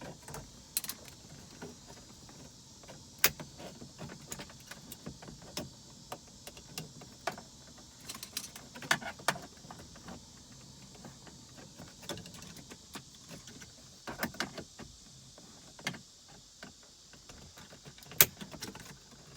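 Scattered clicks, taps and knocks of plastic dashboard trim being pried loose and handled, over a faint steady hiss; one sharper click near the end is the loudest.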